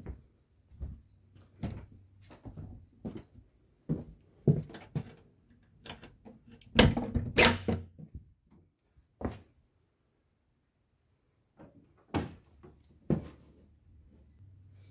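A run of knocks and thumps on wood: steps on bare floorboards, a louder clatter of a wooden door being handled about seven seconds in, then two single thumps near the end.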